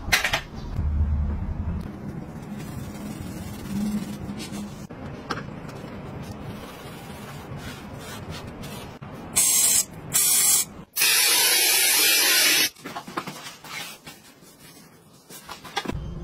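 A sprayer hissing: two short spray bursts, then one longer spray of about a second and a half, with softer handling noises before them.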